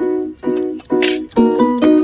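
Background music of plucked-string chords: a repeated chord about every half second, then a quicker run of plucked notes from about halfway through.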